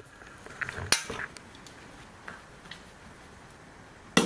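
Handling noise in a quiet garage: a few metallic clinks and knocks of tools and parts being moved, with a louder sharp knock about a second in and another near the end.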